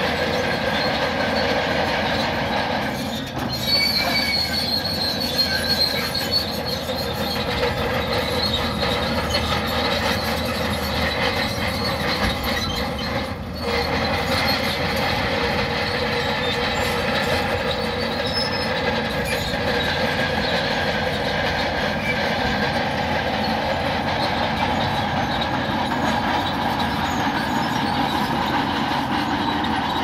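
Shantui crawler bulldozer working, its steel tracks squealing over the steady run of the engine, with two brief dips in level.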